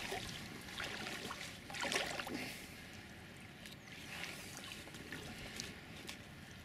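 Hooked pike splashing and swirling at the surface of the water as it is played on the line, in a few short splashes, the loudest about two seconds in.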